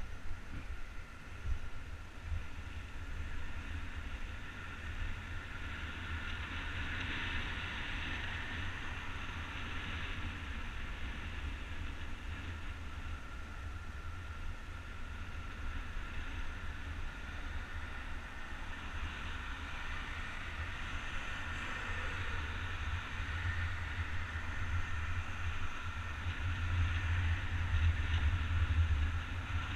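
Skate wheels rolling steadily over rough asphalt, a continuous rumbling roar, with wind buffeting the camera microphone, heaviest near the end.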